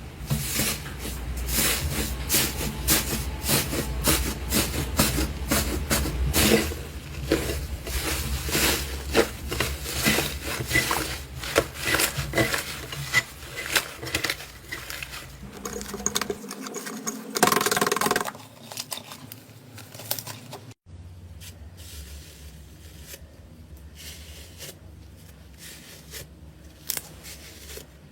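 Slime being pressed and squeezed by hand, giving a dense run of crackling clicks and small pops, with a brief louder rustle a little past halfway. About three quarters of the way through it cuts to a quieter, sparser run of clicks.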